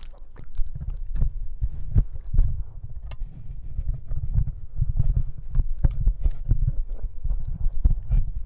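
Boston Terrier puppy chewing and mouthing a microphone: a constant run of deep thumps and rubbing handling noise on the mic, broken by many sharp clicks of teeth.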